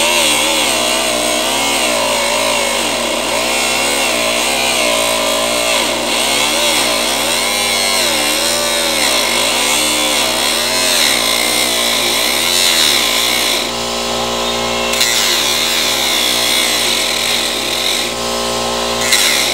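Handheld electric power tool running continuously on car body metal, its pitch wavering up and down as the load changes, easing briefly about fourteen seconds in.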